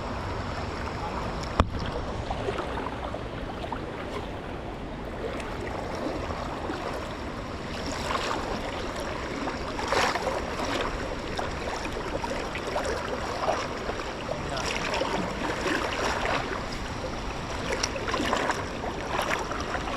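Stream water running, with irregular splashing from someone wading through it from about eight seconds in. A single sharp click sounds near the start.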